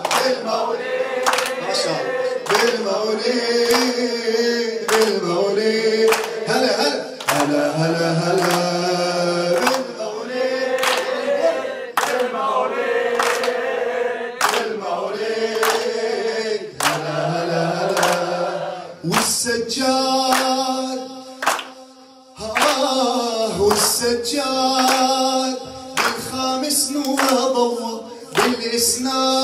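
A man sings a celebratory Arabic mawlid nasheed with other voices joining in, over a steady clapped beat a little faster than one per second. The singing breaks off briefly about two-thirds of the way through, then resumes.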